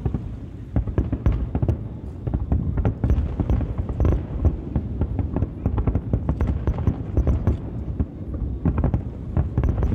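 Aerial fireworks shells bursting in quick succession, a dense, unbroken run of booms and crackles several a second.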